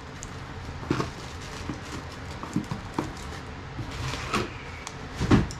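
Cardboard boxes and plastic packaging being handled: scattered short knocks and rustles, with a louder low knock near the end.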